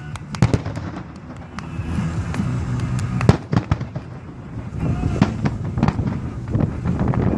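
Aerial firework shells bursting overhead: a run of sharp bangs and crackles at irregular intervals, the loudest about three seconds in.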